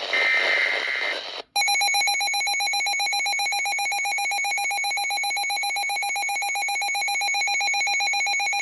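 An EAS data burst (SAME header) ends in the first second. After a brief dropout, an emergency-alert receiver's electronic alarm starts: a loud, rapidly trilling multi-pitched beep that runs steadily, meaning the receiver has activated on the warning. Near the end it gives way to a single steady tone, the weather-radio 1050 Hz alert tone.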